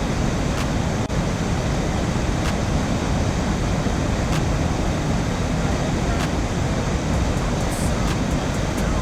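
Steady rushing roar of river water pouring over a waterfall, a dense, even noise with no let-up.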